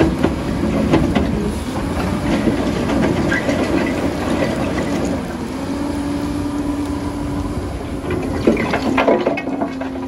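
Hyundai tracked excavator's diesel engine and hydraulics running while its rotating-shaft screener bucket turns, rattling brick and concrete rubble inside as the soil sifts out. A few sharper clatters of rubble come near the end.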